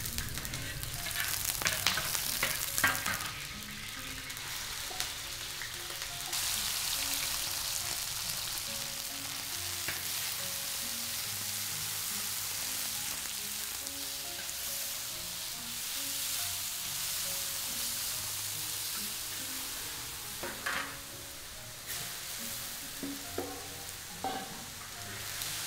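Diced beef sizzling in hot oil in a large iron wok, stirred with a long-handled spatula, a steady frying hiss. Sharp knocks and scrapes of the spatula on the wok come in the first few seconds and again near the end.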